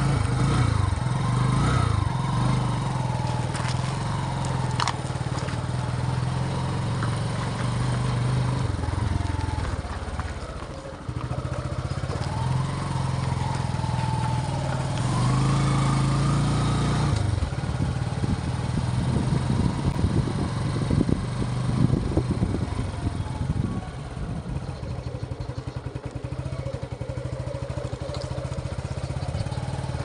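Suzuki motorcycle engine running while being ridden, heard from the rider's seat; its pitch rises and falls with the throttle, and it drops away briefly about 11 seconds in before picking up again. In the second half, uneven low rumbling joins it as the bike goes over a rough dirt track.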